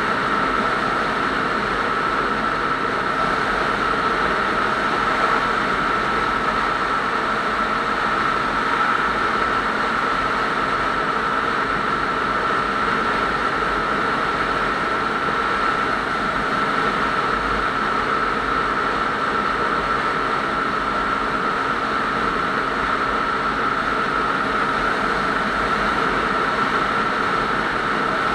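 Motorcycle cruising steadily at highway speed: a constant engine drone mixed with road and wind noise, with a steady high-pitched tone running through it.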